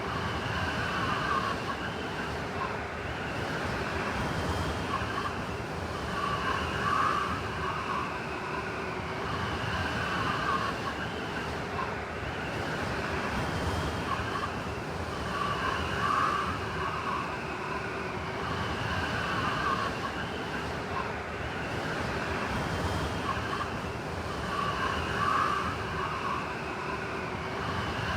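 Blizzard wind blowing steadily, with whistling tones that swell and fade every few seconds as gusts come and go.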